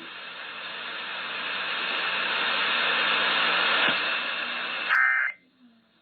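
Radio static hiss after the broadcast ends, swelling steadily louder for about five seconds, then a short burst of sound as it cuts off abruptly, leaving a much quieter background.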